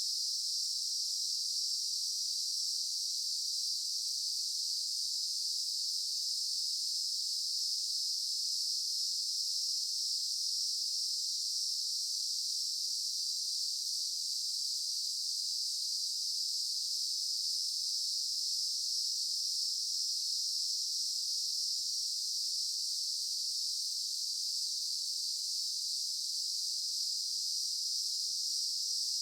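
Daytime insect chorus: many insects calling together in a steady, high-pitched, unbroken drone with no change in level.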